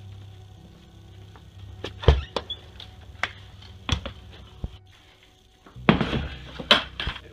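Knocks and thumps of a door and footsteps as a plastic 5-gallon bucket is carried indoors, then a cluster of clunks near the end as the bucket is set down. A low steady hum runs underneath.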